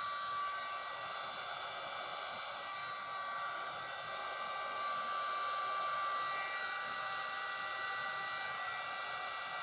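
Handheld electric heat gun running steadily: a hiss of blown air with a constant whine.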